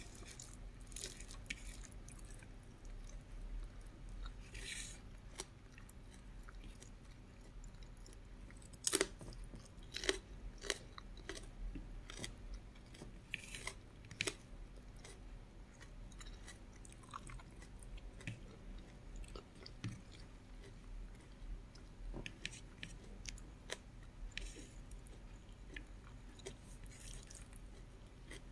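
A person chewing a mouthful of rice, bacon and scrambled egg close to the microphone, with irregular mouth clicks and smacks. The loudest single click comes about nine seconds in.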